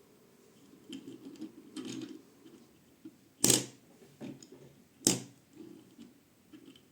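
Hands handling a die-cast toy car and its packaging: soft rustling, then two sharp clicks about a second and a half apart, with lighter ticks after them.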